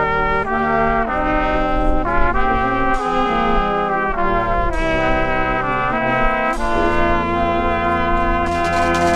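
Small brass band of trumpets, French horn and tuba playing a holiday tune in slow, held chords. A drum comes in near the end.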